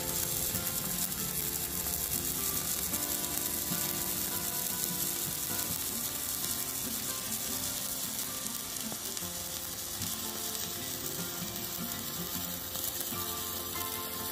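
Stick-welding (MMA) arc sizzling steadily as a stainless steel electrode is run from a Poney MMA 200E mini inverter welder.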